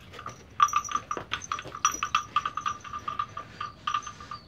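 Quick, irregular clacking, several knocks a second, each with a short ringing tone, as a bloated cow champs on a salted wooden stick held crosswise in its mouth.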